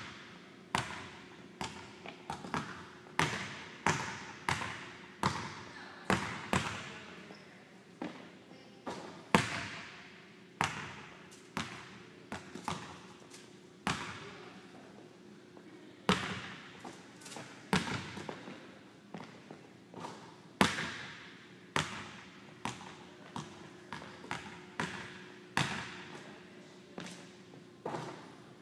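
Basketball bouncing on a hardwood gym floor: sharp impacts, roughly one a second, each ringing out in the echo of the large hall. A faint steady hum runs underneath.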